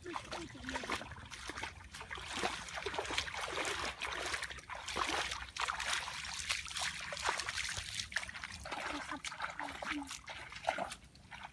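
Bare feet splashing and sloshing irregularly as they wade through shallow muddy water.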